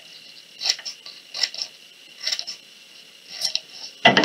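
Scissors snipping strips off a piece of construction paper, about four separate crisp cuts roughly every three-quarters of a second, then a louder knock near the end.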